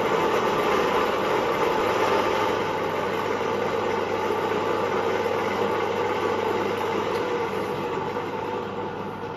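Radial arm drill running steadily, spinning a spiral reamer used to ream a forklift axle's king-pin bearing hole back to size. The sound eases off gradually over the second half.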